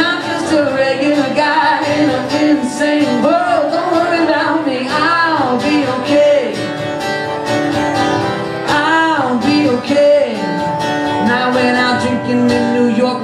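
A man singing live over his own acoustic guitar, a solo voice-and-guitar song, with sung notes that swoop up and down.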